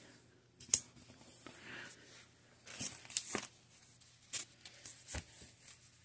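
Paper planner stickers being handled: a sticker rubbed down onto a planner page and a sticker sheet rustling, with a handful of sharp taps and clicks.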